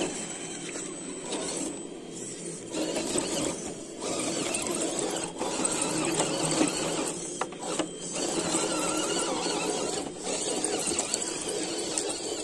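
Electric motor and gearbox of an RC rock crawler whining as it crawls over dirt and roots. The whine drops out briefly several times and picks up again.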